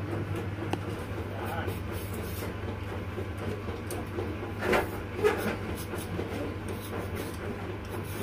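Hand-held vegetable peeler scraping the skin off a potato in short strokes, over a steady low mechanical hum.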